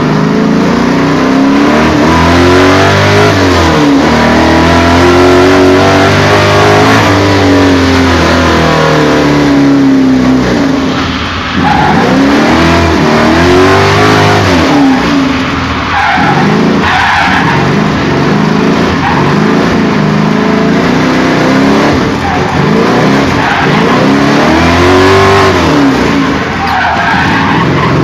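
A car engine driven hard, revving up with rising pitch and dropping back over and over as it accelerates, shifts and slows.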